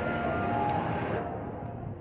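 Indistinct crowd noise and ambient hum in a station hall, with no clear single source. About a second in, the treble drops away and the sound turns duller.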